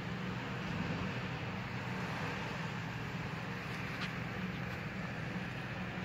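Steady low electrical or mechanical hum over a constant hiss, with a faint click about four seconds in.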